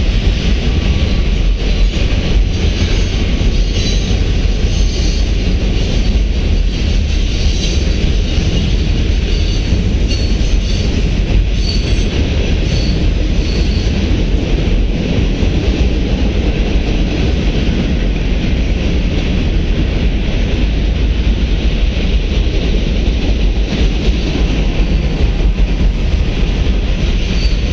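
Freight train cars rolling steadily across a steel girder bridge: a continuous loud rumble and clatter of wheels on rail, with a few faint high wheel squeals around the middle.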